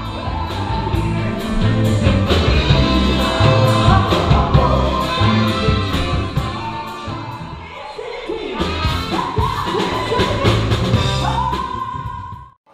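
Live rock-and-roll band playing, with lead singing over drums, bass and electric guitar and a steady beat. The sound cuts out abruptly just before the end.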